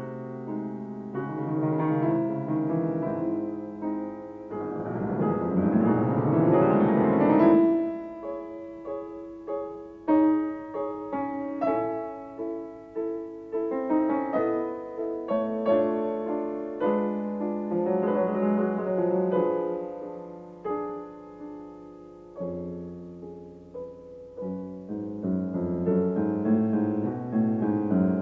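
Solo piano music. A quick flurry of notes swells to its loudest about seven seconds in, then gives way to slower, separate notes and chords.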